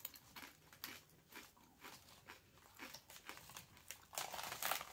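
Faint, irregular crunching of a kettle-cooked potato chip being chewed. About four seconds in, the louder crinkle of the plastic chip bag being handled.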